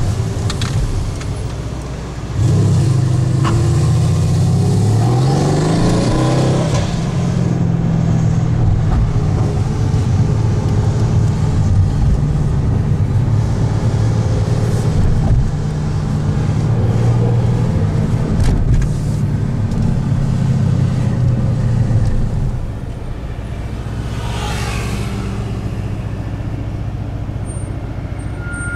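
Tuned Mercedes-AMG C63 S twin-turbo 4.0-litre V8, heard from inside the car, opening up hard about two seconds in. Its pitch rises as the car accelerates, and it stays loud under throttle for a long stretch before easing to a quieter, steadier run near the end.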